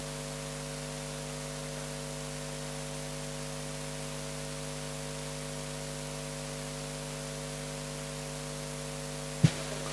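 Steady electrical mains hum and hiss from a live public-address microphone with no one speaking into it. A single brief knock comes near the end.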